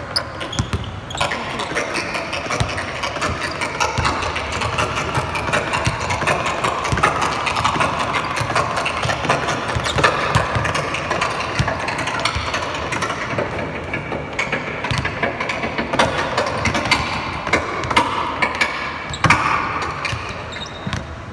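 Basketballs bouncing on a hardwood court, many bounces from several balls in play, over a steady wash of background noise in a large arena that fades near the end.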